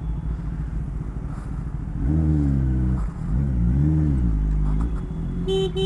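Kawasaki ZX-10R's inline-four engine running at low revs in slow traffic, blipped up and back down twice, about two and four seconds in. A short horn beep sounds near the end.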